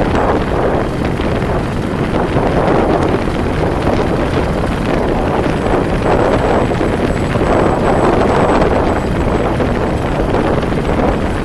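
Steady wind rush and road noise from driving at speed, with wind buffeting the camera's microphone.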